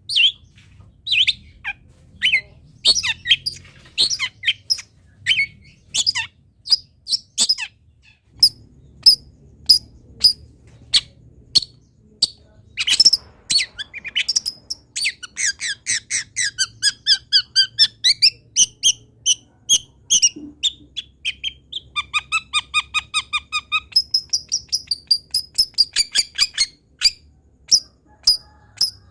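Long-tailed shrike (cendet) singing a varied masteran song of sharp chirps and squawky calls. The calls come about once a second at first, then crowd together into fast runs of rapidly repeated notes past the middle.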